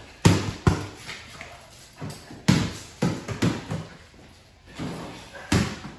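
A rubber play ball bouncing on a concrete garage floor: about seven sharp bounces at uneven intervals, each ringing briefly in the room.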